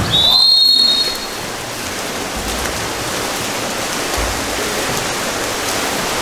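A referee's whistle blown once, a single high blast of about a second, over the steady noise of splashing pool water.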